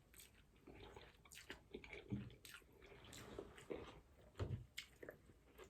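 Faint close-up chewing with small wet mouth clicks and a couple of soft thumps, a person eating beef pho noodles.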